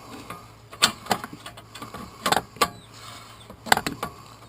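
Sharp metallic clicks and knocks, three pairs about a second and a half apart, as the starter motor of a 2006 Suzuki Eiger ATV is worked loose and pulled out of its housing.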